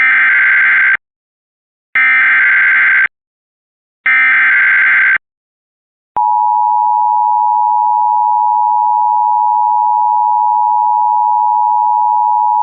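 Emergency Alert System SAME header: three bursts of digital data tones, each about a second long and two seconds apart. About six seconds in, the steady two-tone EAS attention signal starts and holds. Together they mark the start of a new alert message.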